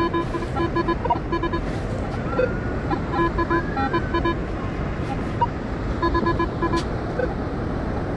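Minelab Manticore metal detector beeping in quick runs of short, evenly spaced tones, three bursts as the coil is swept back and forth over a buried metal target. Steady wind and surf noise underneath.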